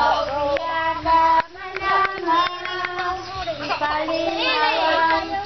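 Children singing together, their high voices holding long, steady notes.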